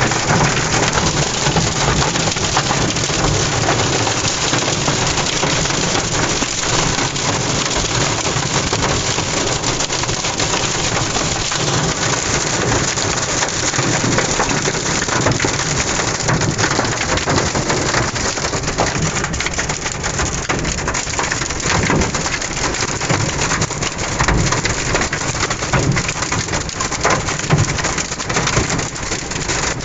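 Hail and heavy rain pelting a pickup truck's roof and windshield, heard from inside the cab: a dense, continuous rattle of impacts that stays loud throughout.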